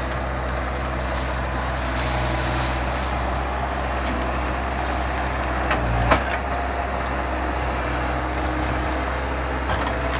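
Bobcat skid steer engine running steadily under work, with one sharp knock about six seconds in.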